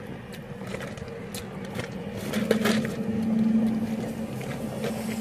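Steady low hum of a car idling, with short clicks and rustles of a plastic fast-food cup and straw as a drink is sipped. The hum grows louder for a couple of seconds midway.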